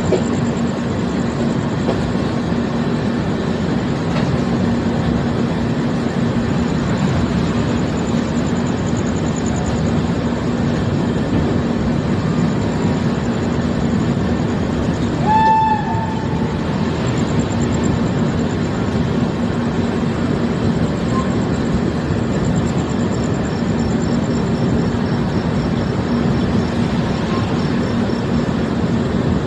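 Mahamana Express passenger train running with a steady rumble, and a short single horn blast about halfway through.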